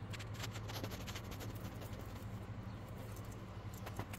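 Bearded dragon munching chopped greens: quick, crisp clicks of chewing, thickest in the first second and again shortly before the end, over a steady low hum.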